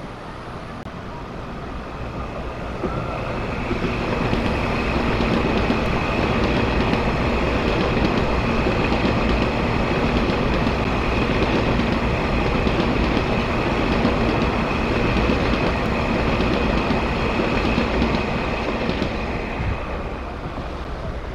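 Taiwan Railway EMU3000-series electric train passing through the station, its wheels running loudly over the rails with a steady high whine. The sound builds over the first few seconds and eases off near the end as the train clears the platform.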